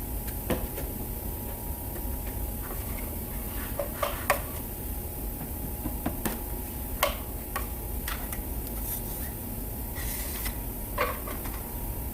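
Scattered light clicks and clinks of hand tools being handled, about eight in all and irregularly spaced, over a steady low hum.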